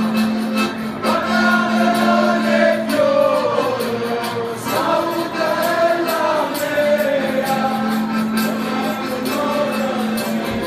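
Italian folk song from Ciociaria: several voices singing together over an organetto (diatonic button accordion), which holds a steady low note, with tambourine beating time.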